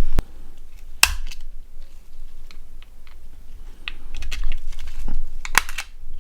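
Plastic clicks and crackling snaps of a Nokia 6680's body shell being prised apart and handled. There is a sharp click near the start, a louder crackling snap about a second in, scattered light ticks, and another crackle near the end.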